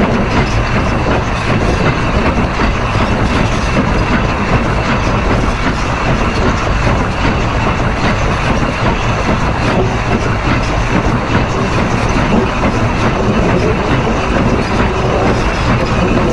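Close-up rolling noise of steam locomotive D&RGW 491's steel driving wheels running on the rail, a steady, loud rumble of steel on steel heard right at the wheel.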